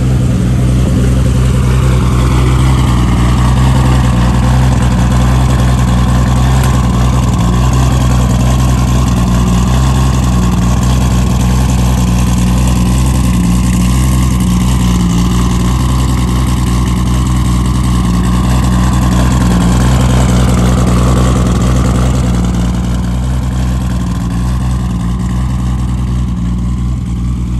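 A car engine running steadily and loudly close by with a deep, even drone, easing off slightly about 22 seconds in.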